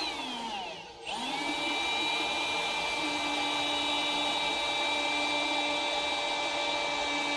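Milwaukee Fuel cordless drill boring a hole in the combine's sheet-steel panel. Its motor whine falls away and nearly stops about a second in, then picks up again and runs steady at full speed.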